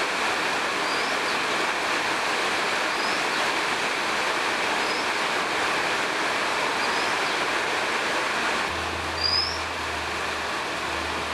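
Steady rain falling, with a bird giving a short rising chirp about every two seconds; the chirp is loudest about nine seconds in. A low steady hum comes in at about the same point.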